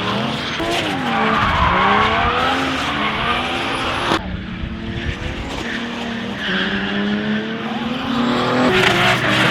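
Race car engines revving up and down hard with tyres squealing and skidding. The sound changes abruptly about four seconds in, to an engine holding a steadier pitch that climbs again near the end.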